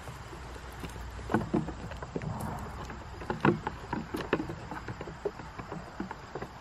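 Goats' hooves knocking on the wooden tops of cable spools as the goats step, jump and jostle on them: irregular sharp knocks, several close together about a second and a half in and again around three and a half to four and a half seconds in, over a steady low rumble.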